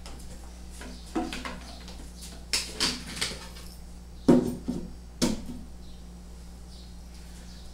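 Light knocks and clatters of particleboard cabinet panels being handled and set in place, the sharpest about four and five seconds in, over a faint steady low hum.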